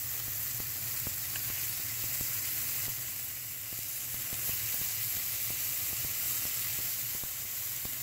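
Scallops coated in olive oil sizzling steadily as they sear in a hot frying pan, with light crackles of spattering fat, while they are flipped over partway through cooking.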